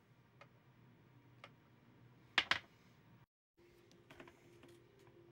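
Scattered light clicks and taps, with one louder double click about halfway through; after a brief cut, a few more small clicks over a faint steady hum.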